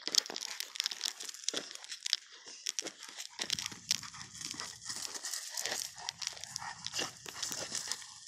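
Tall grass rustling and crackling as it is pushed through, with a low rumble joining in about three and a half seconds in.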